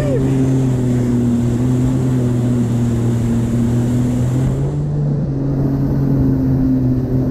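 Personal watercraft (jet ski) engine running steadily at speed while towing, its pitch sagging slightly and picking up again about halfway through, over the rush of water and spray from the hull.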